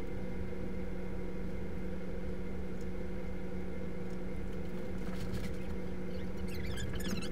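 Steady room hum made of several constant tones, with faint short high squeaks and chirps starting about five seconds in.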